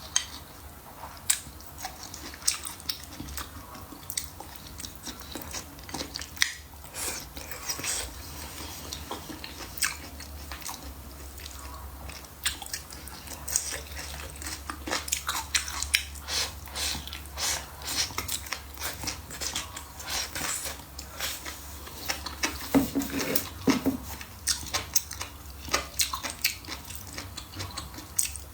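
Close-miked chewing and biting of food, with many irregular crunchy clicks and wet mouth sounds.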